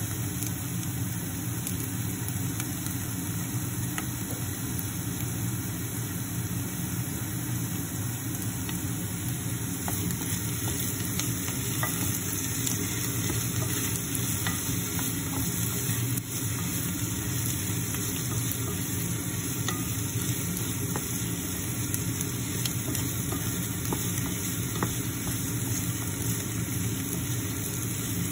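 Diced onions frying in a stainless steel saucepan with a steady sizzle, stirred with a wooden spoon that taps and scrapes faintly against the pot.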